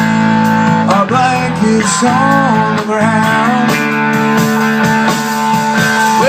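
Rock band music with guitar playing between sung lines.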